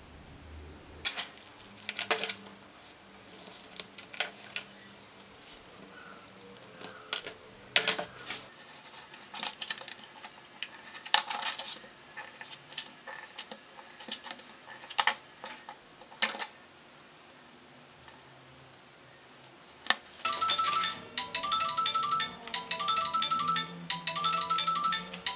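Scattered sharp clicks, taps and scrapes of hand work at a bench, including a craft knife cutting leather on a cutting mat. About 20 seconds in, a bright chiming tune with a quick, even beat starts.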